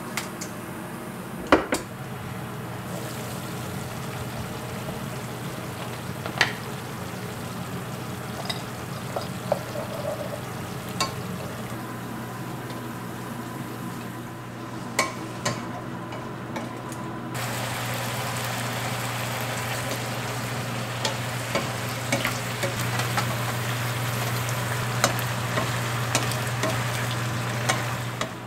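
Food sizzling in oil in a nonstick frying pan on a gas stove, with scattered clicks and taps of utensils. The sizzling gets louder about two thirds of the way through, with scallion and ginger pieces frying in the pan. A steady low hum runs underneath.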